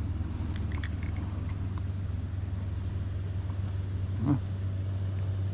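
Steady low rumble, with a short vocal murmur from a man about four seconds in.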